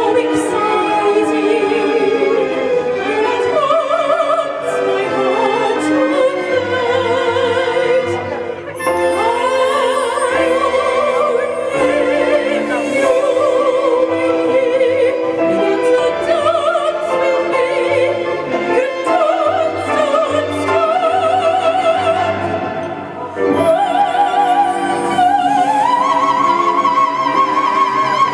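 A woman singing in an operatic soprano style with strong vibrato, amplified through a microphone and PA, over a recorded orchestral backing track. Near the end she climbs to a long, high held note.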